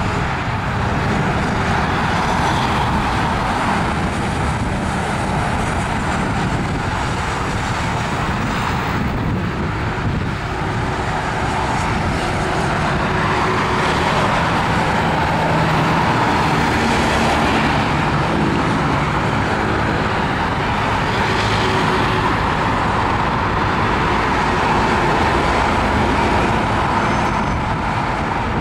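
Boeing 777-200F freighter's twin GE90 turbofans at takeoff thrust: a steady jet roar through the takeoff roll, lift-off and climb-out, growing slightly louder from about halfway.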